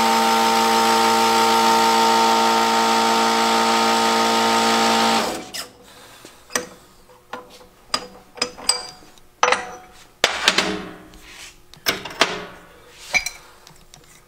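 Powered Sunnen BP-10 hydraulic shop press running steadily as it presses a new bushing into a Harley-Davidson connecting rod, then cutting off about five seconds in. After it stops, scattered metallic clinks and knocks as the pressing tool and rod are handled.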